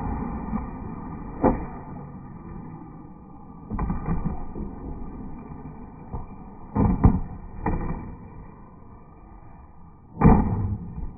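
Skateboard wheels rolling on concrete, broken by a series of sharp clacks and knocks as the deck pops and strikes a concrete ledge; the loudest clatter comes about ten seconds in, as the board comes off the ledge.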